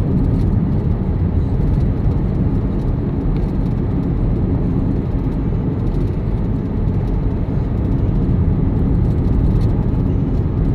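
Steady low rumble of a car being driven: engine and tyre noise on the road.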